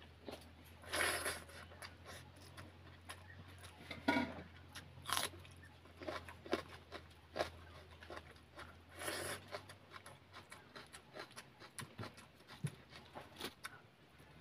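Close-up eating sounds: fingers squishing and mixing boiled rice on a metal plate, and wet chewing and lip-smacking, heard as a run of short clicks and smacks with a few louder crackly bursts. A low steady hum runs underneath.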